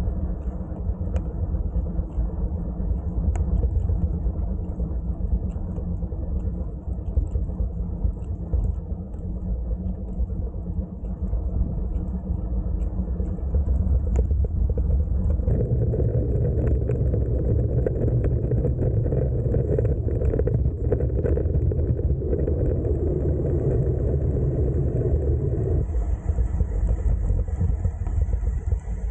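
Riding noise from a moving bicycle: wind on the camera microphone and tyre rumble, with scattered small knocks and rattles from bumps. The rumble grows louder about halfway through and eases off again near the end.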